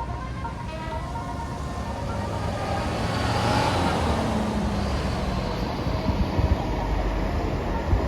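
Road traffic: a vehicle passes close by, its engine and tyre noise swelling to a peak near the middle and then easing off, with the engine tone dropping in pitch as it goes past.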